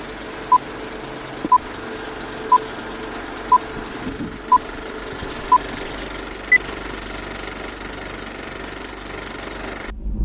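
Film projector clattering steadily, with countdown-leader beeps laid over it: six short beeps one second apart, then one higher beep. The sound cuts off suddenly near the end.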